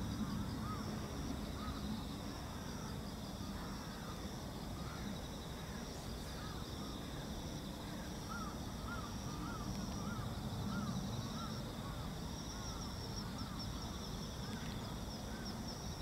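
Birds calling: runs of short arching chirps, about two a second, coming and going, with fainter rapid high chirping and a steady low rumble underneath.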